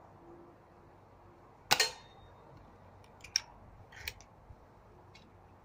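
GEM .177 smoothbore spring-piston air rifle firing once, a sharp crack with a short ringing tone after it. A few smaller clicks follow as the barrel is broken open to cock it again.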